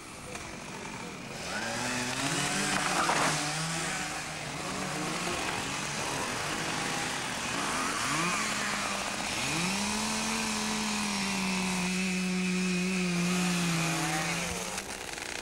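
Chainsaw revving up and down several times, then held at high speed for a few seconds while cutting timber, its pitch sinking slightly, before it drops back near the end.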